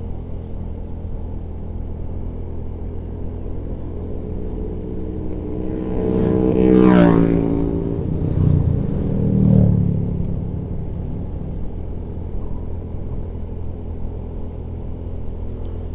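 Vehicle engine and road noise droning steadily on a steep uphill climb. About six seconds in, an engine revs up with its pitch rising, followed by a second, lower swell a few seconds later.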